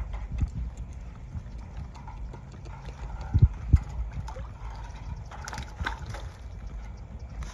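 A beaver shifting branches in its water tank: sticks knocking and water sloshing, with two dull thumps about three and a half seconds in and a short run of twig clicks and cracks near six seconds.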